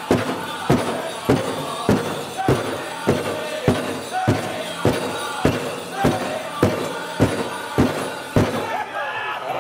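Powwow drum group playing a men's chicken dance song: a big drum struck in unison on a steady beat, a little under two strikes a second, under men's high singing. The drumbeats stop about a second before the end while the voices carry on.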